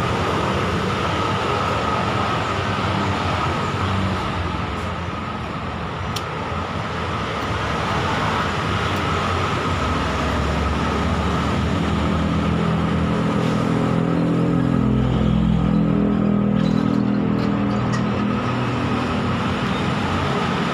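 Steady road traffic noise with a constant high hum, and a vehicle engine passing, loudest in the second half.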